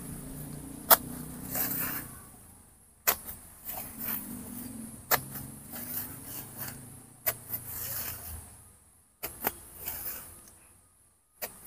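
A sharpened 2-inch PVC pipe stabbed down through silver-black plastic mulch film into the soil, six times at about two-second intervals. Each stab gives a short, sharp sound as it punches a hole, with plastic rustling and scraping between.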